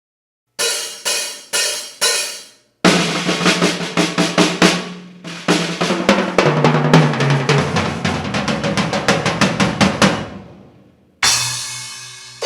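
Ludwig BackBeat drum kit, with DW 3000 kick drums and a steel Ludwig snare, played close-miked and unprocessed. Four spaced accented hits come first, then about eight seconds of fast snare, kick and tom strokes, stepping down to lower toms before ringing out. A fresh cymbal-backed hit comes near the end.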